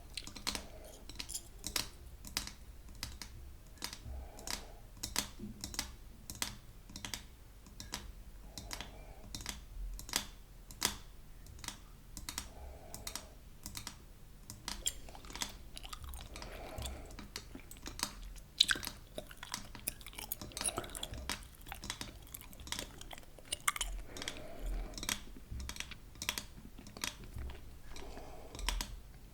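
Close-miked chewing gum, with wet, sharp clicks and snaps about two or three times a second.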